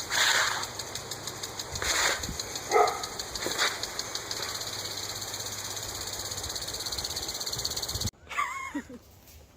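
A steady machine noise with a fast, even pulse, with a few short dog barks or yelps over it in the first four seconds. The machine noise cuts off suddenly near the end.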